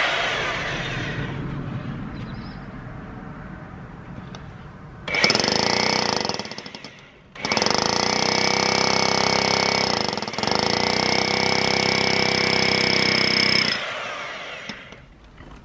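Rotary hammer drill with a long 22 mm masonry bit. It winds down at the start. About five seconds in, a short burst of hammer drilling makes a starter hole. After a brief pause it hammer-drills steadily through the cavity wall for about six seconds with a constant motor whine, then stops and winds down.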